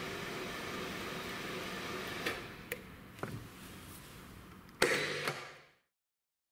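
Breda R1880MP radial drill running with a steady mechanical whir that drops away about two seconds in as its control switch clicks, followed by a few more clicks and one sharp metallic clack near the end as the controls on the drill head are handled.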